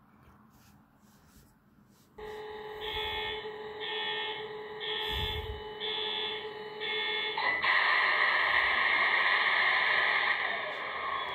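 Sound decoder of an HO scale model diesel locomotive playing through its small onboard speaker. About two seconds in, steady engine tones come on, and a tinny bell rings five times at about one a second. Then the engine sound rises into a loud, steady, hissing run.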